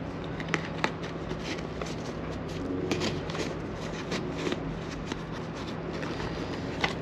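Release strap being fed into a fabric motorcycle tank bag, with rustling handling and small scattered clicks, over a steady low hum.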